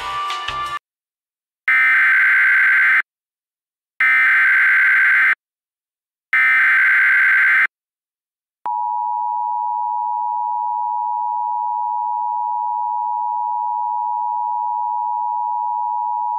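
Emergency Alert System activation tones: three loud bursts of screeching SAME header data tones, each about a second long with a pause between. Then the EAS attention signal, a steady two-tone 853/960 Hz alarm, held for about eight seconds.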